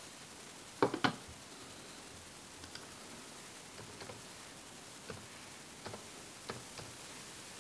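Laptop keyboard keystrokes while a password is typed: a quick run of three sharper clicks about a second in, then single key clicks spaced about a second apart, over a faint steady hiss.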